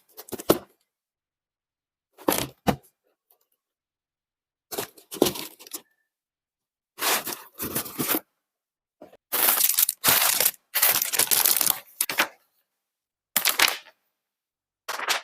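Unboxing of a plastic model kit: short bursts of handling noise from the box, bagged parts and plastic runners, separated by silent cuts, with a longer stretch of handling about two-thirds of the way through.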